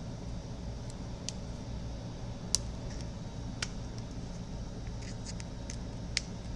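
A few short, sharp clicks and taps of small handled objects, the loudest about two and a half seconds in and another near the end, over a steady low hum.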